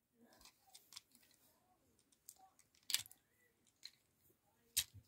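Scattered faint plastic clicks from a Transformers Studio Series 86 Brawn action figure's joints and parts as its legs are split apart, the loudest about three seconds in and another near the end.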